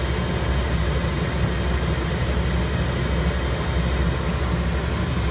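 Rolls-Royce 250 turboprop of a Cessna P210 Silver Eagle conversion running steadily after start, heard from inside the cockpit as a constant, deep engine and propeller noise.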